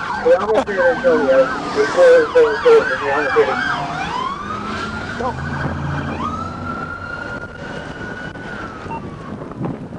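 Police car sirens yelping rapidly, more than one sweeping at once. About three and a half seconds in they change to a slow wail that dips, climbs and holds, then falls away near the end.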